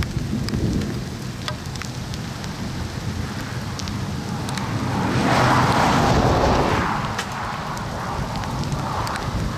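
Thunderstorm: scattered raindrops tapping over a low rumble. A broad rushing swell builds about five seconds in and eases off by about seven.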